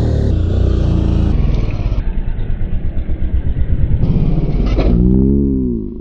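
Off-road motorcycle engine under hard throttle, running rough and pulsing, with a rev that rises and falls about five seconds in as the bike is ridden at a small dirt jump.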